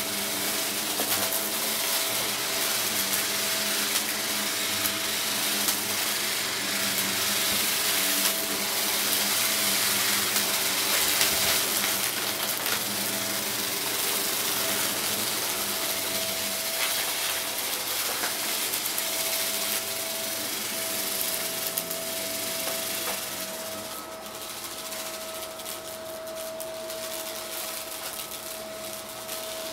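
Vacuum cleaner running steadily: a motor whine over a broad rush of suction, with scattered small ticks as crunchy debris is picked up. Near the end the sound drops a little and a second, higher whine joins in as the nozzle goes under furniture.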